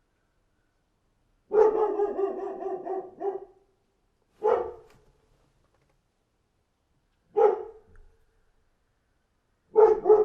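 Dog barking: one long, drawn-out bark about a second and a half in, then single short barks a few seconds apart, the last a quick double.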